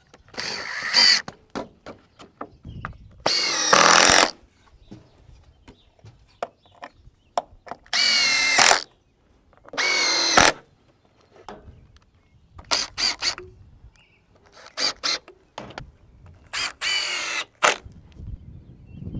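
Cordless drill driving screws through a wooden fascia board into roof trusses, in repeated bursts about a second long with the motor's pitch rising as it spins up. Later come shorter trigger blips in quick pairs and threes.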